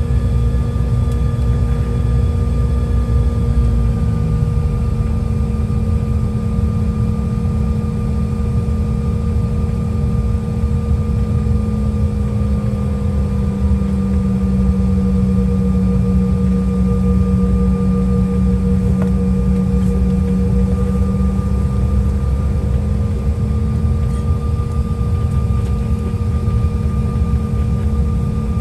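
Jet airliner's engines heard inside the passenger cabin while taxiing: a steady low rumble with a constant hum. The hum drops slightly in pitch about twelve seconds in and comes back up about ten seconds later.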